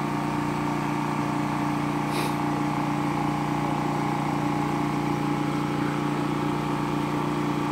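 Water pump motor running with a steady hum, pumping water up into the rooftop plastic drums while they fill.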